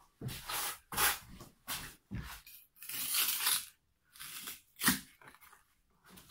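Steel bricklayer's trowel scraping and spreading mortar on brick, in a series of short rasping strokes, with a sharp knock about five seconds in as a brick is tapped into place.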